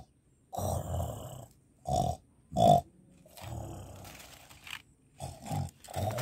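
Tiger growls and grunts: a run of about six short, rough bursts, the loudest a little under three seconds in.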